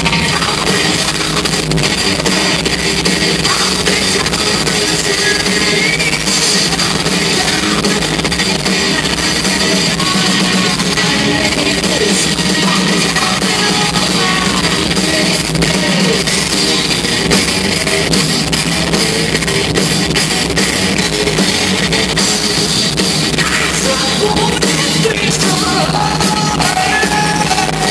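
Live rock band playing at full volume: electric guitars, bass and drum kit, with a woman singing into a microphone, heard through a hall's PA from among the audience.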